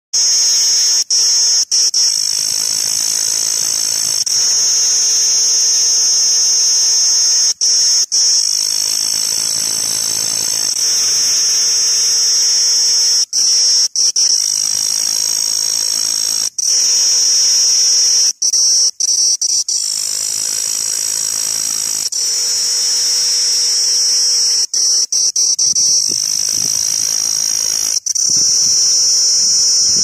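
Cicada singing: a loud, continuous high-pitched buzz, broken by brief breaks every few seconds.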